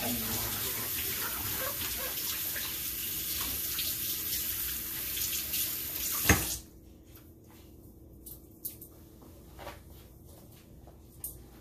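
Kitchen tap running steadily into the sink, then turned off with a knock about six seconds in. After that there are only a few light clicks and knocks.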